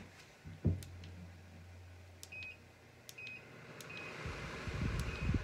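WEN 3-speed air filtration unit's control panel beeping four times, short high beeps about a second apart, as it answers button presses on its remote control. A knock sounds near the start, and a low hum runs under the first few seconds.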